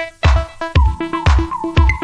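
Background electronic music with a steady kick drum about twice a second and short repeating melodic notes.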